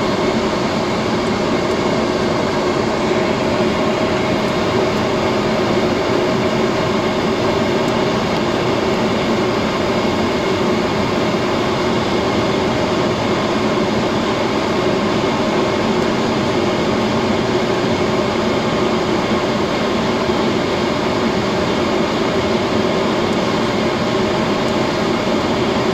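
Steady drone of the Be-200 amphibian's twin turbofan engines and airflow heard inside the cockpit, a constant noise with a few steady hum tones running through it.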